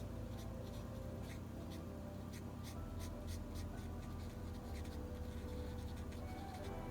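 Stampin' Blends alcohol marker stroking on card stock while colouring in small stamped flowers: short scratchy strokes in quick succession, several a second, over a faint steady hum.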